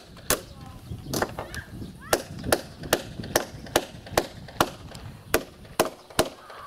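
A steel hammer driving nails into a wooden log crossbeam: a steady run of sharp blows, about two to three a second.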